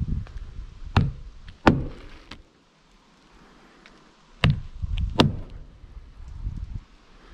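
Hammer driving roofing nails through asphalt shingles: four sharp blows in two pairs, the first pair about a second in and the second about four and a half seconds in.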